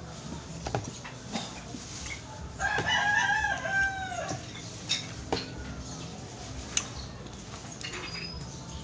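A rooster crows once, about three seconds in, in a single call lasting over a second that falls away at the end. A few sharp clicks are heard before and after it.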